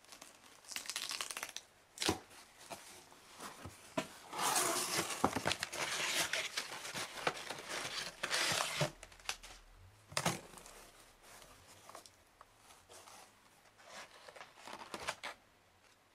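A cardboard shipping box being torn open, then crumpled packing paper crinkling as hands dig through it. The loudest, densest tearing and crinkling comes in the middle stretch, with sharp rips a couple of seconds in and again about ten seconds in, and softer rustling near the end.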